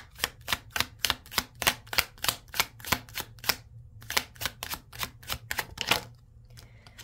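Tarot deck being shuffled by hand, the cards clicking in a quick, even run of about three or four slaps a second. There is a short break about four seconds in, and the shuffling stops about six seconds in.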